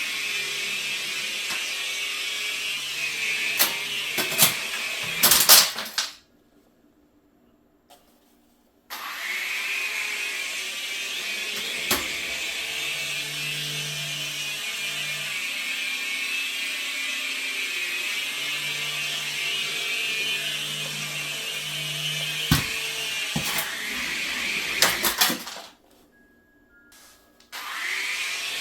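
Small electric motors and rotor blades of a toy RC helicopter whining steadily in flight, with a few sharp knocks and clicks. The whine stops dead twice for a couple of seconds, about six seconds in and again near the end.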